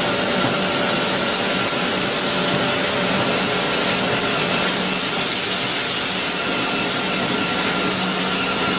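Combined corn (maize) flour milling machine running: a loud, steady rushing machine noise with a constant underlying hum.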